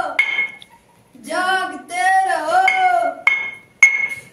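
A voice singing a long, drawn-out phrase, with small hand cymbals clinking. There is one ringing strike just after the start and two sharp, ringing strikes near the end.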